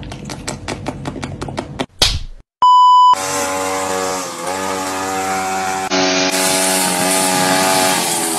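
A cat lapping water from a glass, a quick run of regular clicks for about two seconds. After a sharp cut, a steady electronic beep sounds for about half a second. Then a gas string trimmer runs loudly, its engine pitch dipping and rising as it is revved.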